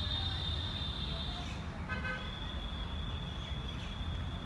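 Street background of low traffic rumble under a steady high-pitched whine, with a short vehicle horn toot about two seconds in.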